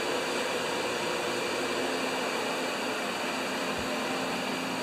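Steady fan-like running noise: an even hiss with a faint hum that does not change.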